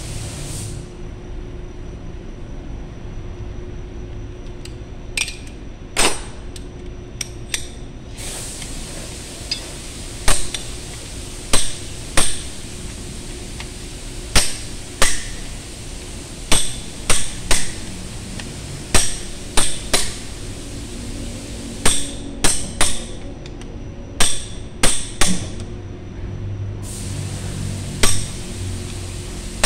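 Hammer striking a steel bar held against a forklift wheel's hub nut: a couple dozen sharp, ringing metal-on-metal blows in irregular groups of two or three.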